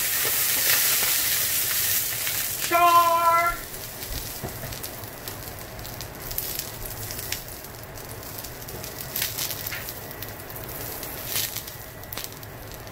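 Freshly washed grape tomatoes hitting a hot cast-iron skillet: a loud sizzle for the first few seconds that drops off sharply, then a quieter steady sizzle with scattered pops and crackles as they start to char.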